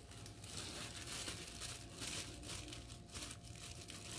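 Thin disposable plastic gloves crinkling and rustling as they are handled and pulled open. The sound is a faint, irregular crackle.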